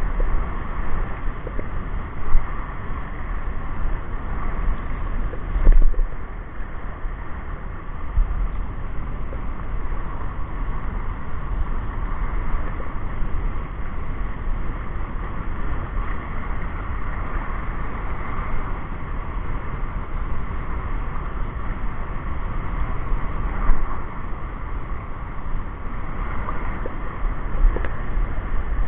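Wind buffeting the microphone over a steady wash of water and small waves, with a few louder gusts of rumble.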